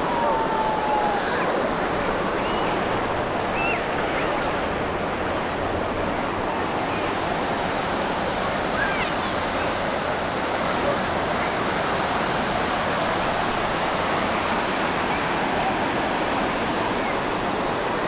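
Ocean surf breaking steadily on the beach, a continuous even rush.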